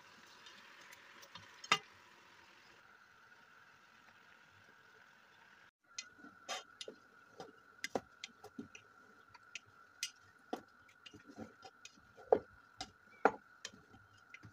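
Wooden spatula stirring meat and chickpeas in a metal cooking pot, knocking and scraping irregularly against the pot's sides and bottom; the knocks come thick and fast in the second half.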